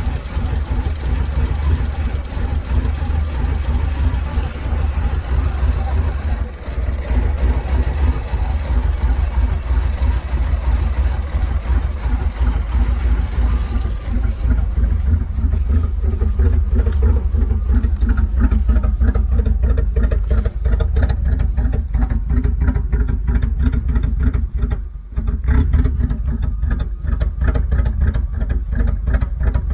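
1984 Firebird/Camaro engine idling with a steady low rumble and a pulsing beat that grows clearer in the second half, dipping briefly twice. The owner calls it a rough idle.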